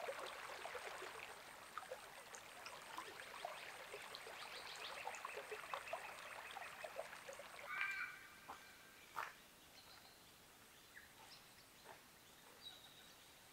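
Faint water splashing and trickling from a person swimming in a river, fading out about seven seconds in. Then a short bird call just before the eight-second mark, followed by a few faint scattered bird calls.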